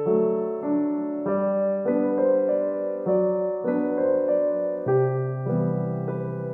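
Background piano music: held notes changing about once or twice a second over lower bass notes.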